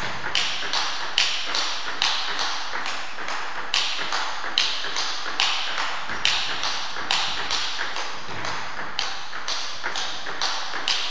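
Table tennis warm-up rally: the ball clicking off bats and table in a steady, even rhythm, about two to three hits a second.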